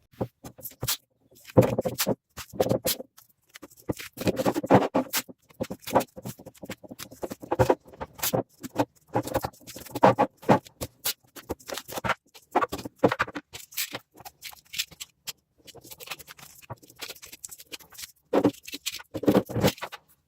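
Irregular clicks, taps and short scrapes, as of small metal parts being handled and worked by hand, with a few louder bursts.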